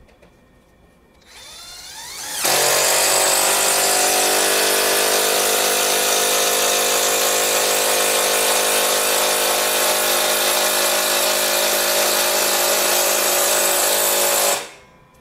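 Mollar CIDR12150U 12-volt cordless impact driver driving a long 8 cm wood screw into soft jati Belanda wood without a pilot hole. Its motor spins up for about a second, then the hammer mechanism starts impacting. The impacting is loud and steady for about twelve seconds, then stops suddenly as the screw seats without the bit slipping.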